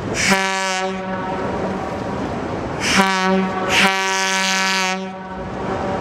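Horn of a 1947 Porter 87-ton diesel-electric locomotive sounding three blasts on one steady note: a short one, then about two seconds later two longer ones back to back, over the running noise of the train.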